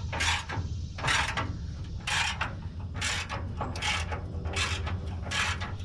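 Hand ratchet wrench tightening control-arm bolts, about seven short raspy ratcheting strokes roughly one a second, over a steady low hum.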